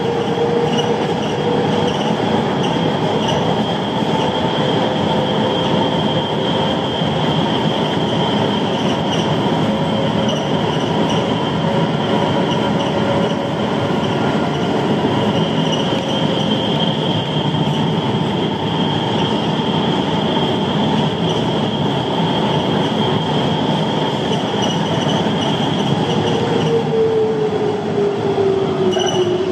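Rubber-tyred Siemens Cityval metro train running through a tunnel, heard from on board: a steady rolling rumble with an electric motor whine and a thin, high whine above it. Near the end the motor whine falls in pitch as the train slows for the next station.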